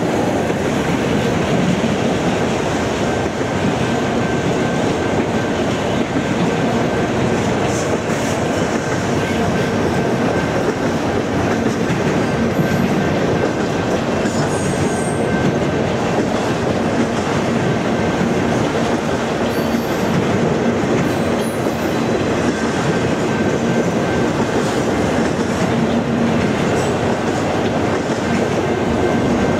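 A freight train of autorack cars rolling past, the steady noise of steel wheels running on the rails.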